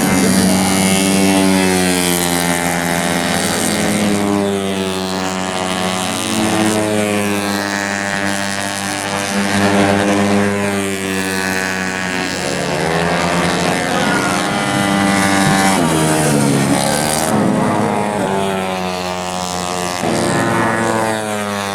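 Tuned 130 cc automatic scooter racing engines at high revs, several at once. Their pitch climbs and falls again and again as the bikes accelerate and pass.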